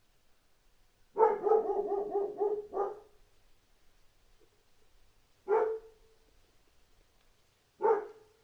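A dog barking: a fast run of about seven barks a second in, then two single barks a couple of seconds apart.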